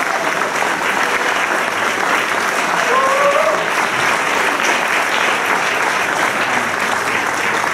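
Audience applauding steadily, with a brief rising voice from the crowd about three seconds in.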